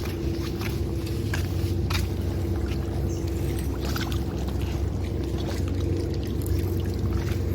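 An engine running steadily at one even pitch, with short splashy clicks scattered through it.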